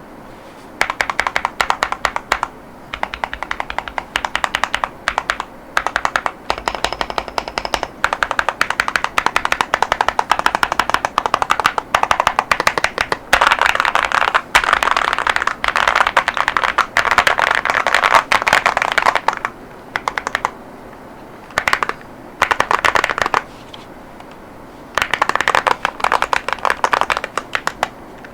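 Typing on a VTER Galaxy 80 mechanical keyboard with Gateron Azure Dragon V3 tactile switches and ceramic keycaps: fast runs of key clacks, broken by short pauses of a second or two in the last third.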